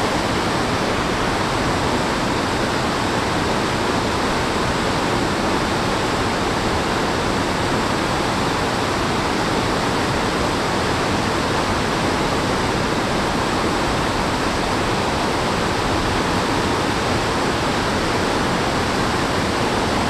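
Glacial meltwater torrent rushing through a rocky bed: a steady, loud, unbroken noise of white water.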